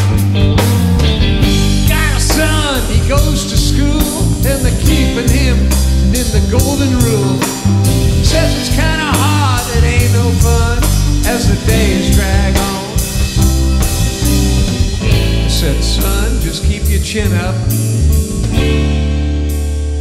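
Rock band playing an instrumental passage: electric guitar, bass, drums and keyboards, with a lead line of bending, wavering notes through the middle.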